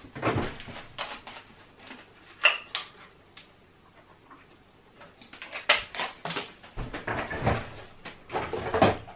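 Kitchen handling sounds: a series of knocks and clicks of crockery and cupboard doors on a worktop, with a short ringing clink about two and a half seconds in and a busier run of knocks in the last few seconds.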